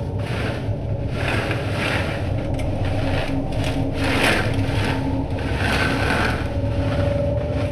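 Rough scraping and rubbing noises that swell and fade roughly once a second, over a low, steady rumble with a few held low tones.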